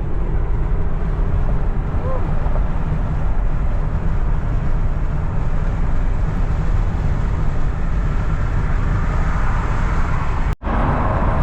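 Steady road and engine noise of a car driving at highway speed, heard from inside the cabin. It drops out for an instant near the end.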